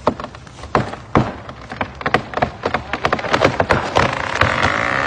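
Wood cracking and splintering in a rapid, irregular series of sharp snaps that come thicker and faster toward the end. It gives way to a dense rush of noise in the last second, typical of a tree giving way.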